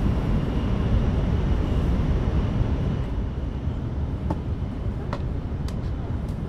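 Cabin running noise of an N700S Shinkansen train at speed: a steady low rumble of wheels and air that eases slightly about three seconds in, with a few faint ticks near the end.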